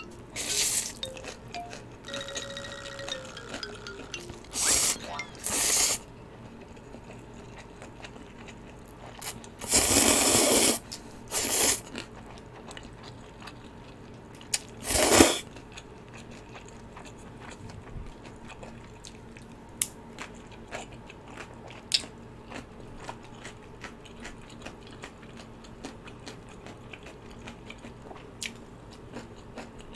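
Close-miked eating of spicy ramyun noodles: several loud slurps, the longest about ten seconds in, with chewing and small mouth clicks between them and through the quieter second half.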